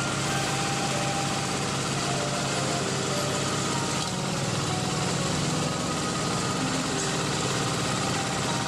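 Small engine of an old two-wheel hand tractor running steadily as the tractor is worked through flooded paddy mud.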